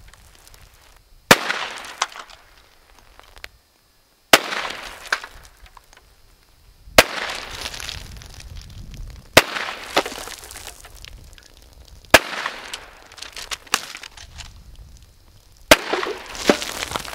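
Six rifle shots from a Rossi Model 92 lever-action carbine in .357 Magnum with a 16-inch barrel, fired one at a time about every three seconds. Each loud shot rings out for about a second afterwards.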